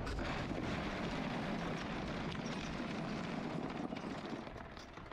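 Open-wheel F1000 race car coasting through a gravel trap after its engine failed: a steady noisy rumble of gravel under the tyres, dying away as the car slows to a stop near the end.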